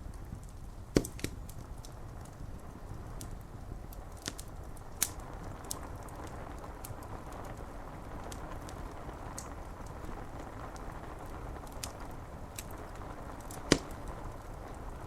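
Wood fire crackling with scattered sharp pops, the loudest about a second in and near the end, over a steady rush of rain on window glass.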